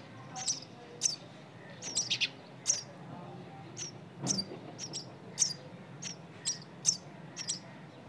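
Nestling songbirds giving short, high begging chirps, about two a second at uneven intervals, some in quick clusters.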